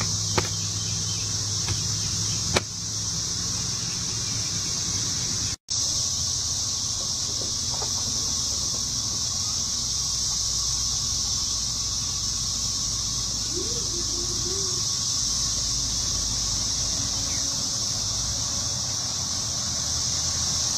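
Insects droning steadily in the grass, a continuous high-pitched buzz that cuts out for an instant about five and a half seconds in.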